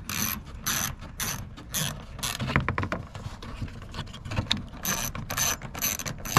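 Hand ratchet clicking in short bursts, about two strokes a second, as a Torx bolt holding the wheel-well flare and splash guard is backed out; the clicking eases off for a moment in the middle, then comes back in a quick run near the end.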